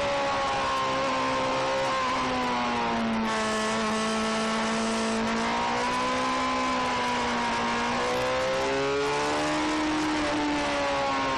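Suzuki GSX-R sport bike's inline-four engine heard from a camera taped to the fuel tank, its pitch falling and rising several times as the throttle changes through bends, over a steady rushing noise of wind.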